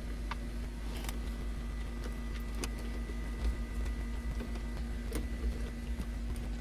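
A few faint clicks and taps of a 7 mm socket tool working dash-panel screws out, scattered a second or more apart, over a steady low hum.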